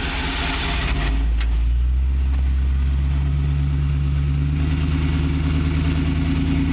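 A 1976 Ford Bronco's engine running steadily at low revs as it crawls up a rock. A hissing noise fades out about a second in, and there is a sharp knock about a second and a half in.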